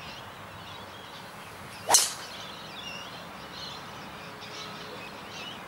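Callaway RAZR Fit Xtreme driver striking a teed-up golf ball off the tee: one sharp crack about two seconds in.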